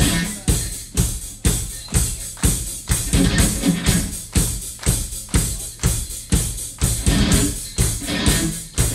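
Rock drum kit playing a steady beat, bass drum and snare striking about twice a second under ringing cymbals.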